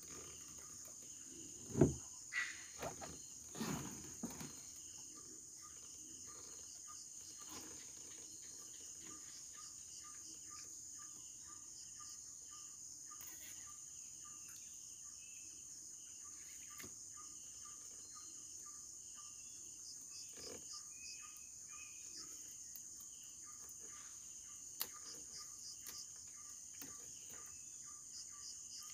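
Steady high-pitched trilling of an insect chorus, crickets or similar, with faint repeated chirps beneath it. A few knocks of handling noise come in the first few seconds.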